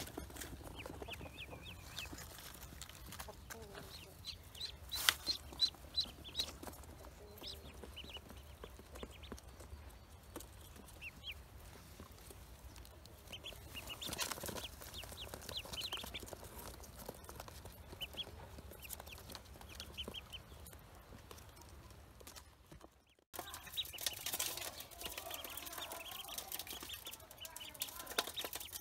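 Ducklings peeping: runs of short, high cheeps in quick succession, with gaps between the runs.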